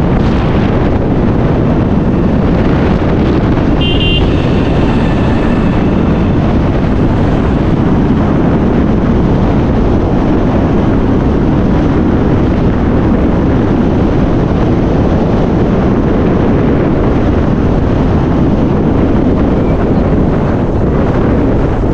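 Steady road and wind noise from riding in a moving vehicle, with wind buffeting the microphone. A brief high tone sounds about four seconds in and fades within a couple of seconds.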